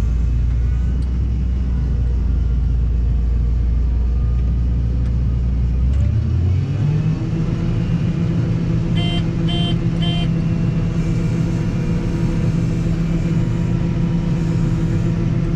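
Combine harvester engine running, heard from inside the cab: a steady low drone that rises in pitch about six seconds in and holds at the higher speed. Three short beeps from the cab sound around nine to ten seconds in.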